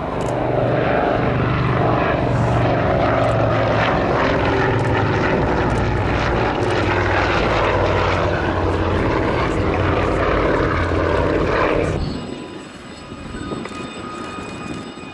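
Avro XIX Anson's twin Armstrong Siddeley Cheetah radial engines and propellers running loud and steady as the aircraft flies past. About twelve seconds in the sound cuts off suddenly and gives way to the quieter, steady whine of a Westland Gazelle helicopter's turbine.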